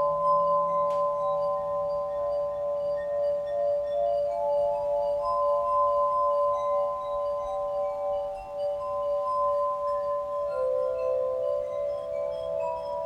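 Crystal lyre played with wet fingers, sounding several sustained, pure, overlapping tones that fade in and give way to new notes one after another. A single light click about a second in.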